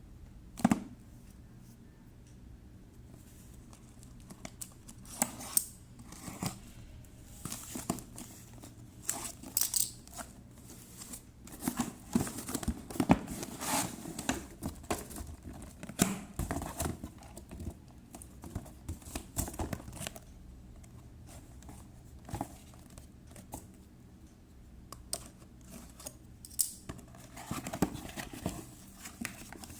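Packaging being handled during an unboxing: irregular rustling, crinkling and tearing with scattered clicks and knocks, busiest about twelve to seventeen seconds in.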